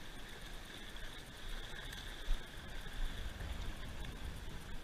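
Wind rumbling and gusting on the microphone over the steady wash of light surf on a flat sand beach, with a faint steady whine running through it.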